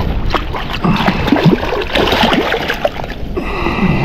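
Water splashing and sloshing in quick, irregular splashes beside a fishing boat.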